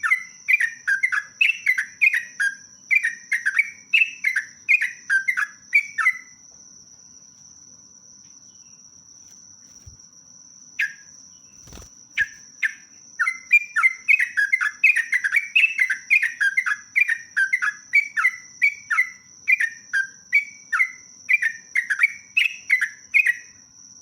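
Yellow-vented bulbul (trucuk) singing in quick runs of short, falling chirps, two or three a second. The song breaks off about six seconds in and picks up again about halfway through. A thin steady high tone runs under it, and a single knock comes in the gap.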